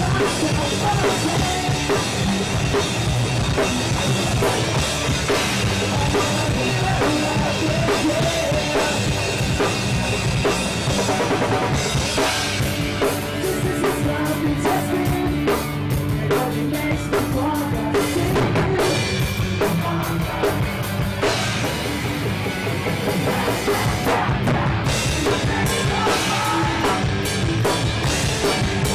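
Pop-punk band playing live and loud: a fast drum kit with distorted electric guitars and bass, the song changing section a few times.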